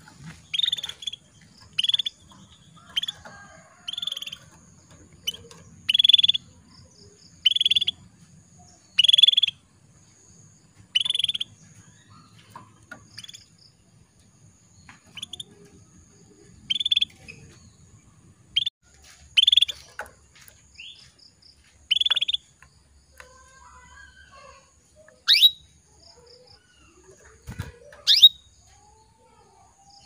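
Female canary calling: short, high chirps repeated every second or two, then a few sharp rising chirps near the end. These are the calls of a female canary summoning a male, used as a lure to set male canaries singing.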